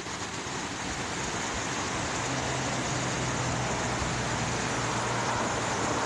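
Steady rush of creek water running over rocks, with a faint low hum that joins about two seconds in.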